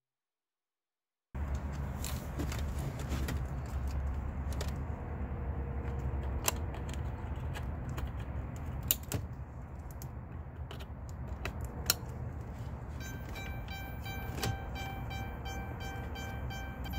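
Plastic clicks and knocks of wiring connectors being pushed into a Dodge Grand Caravan's instrument cluster, over a steady low hum. About 13 seconds in, a rapidly repeating electronic tone starts as the cluster powers up, its built-in chime now live.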